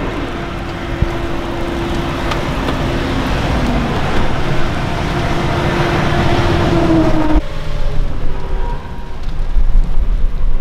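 A vehicle's engine hum with road noise, growing louder, that cuts off abruptly about seven seconds in; after that, gusty wind buffets the microphone.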